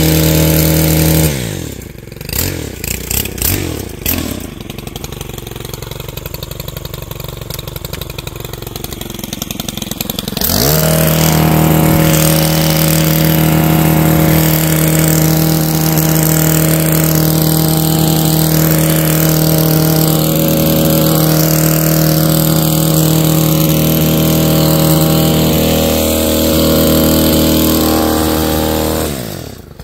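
Stihl KM 131 R KombiMotor four-stroke (4-MIX) engine driving a power scythe attachment, running at full throttle. About a second in it drops to idle and runs quieter for roughly nine seconds, then is throttled back up and held high, with a brief dip and return right at the end.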